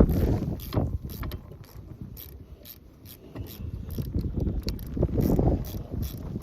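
Ratchet wrench clicking in a run of quick ticks while turning down the lock nut on a snowblower shear pin bolt. A low rumble swells near the start and again about five seconds in.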